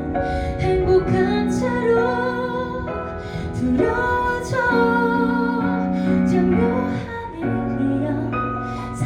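A woman singing a slow, tender ballad live, with held notes and vibrato over a soft instrumental accompaniment.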